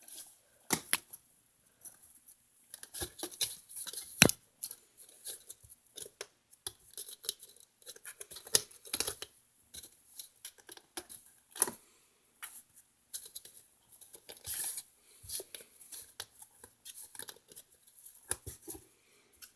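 Kittens scrabbling about at close range: irregular sharp scratches and clicks, several a second in clusters, with short quiet gaps.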